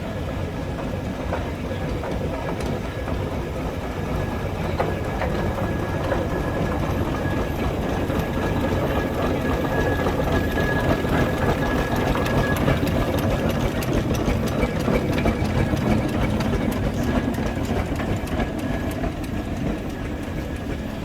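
Steam traction engine on steel wheels running past in a parade: a steady rumble with a fast, rhythmic mechanical clatter, the ticking growing denser in the second half.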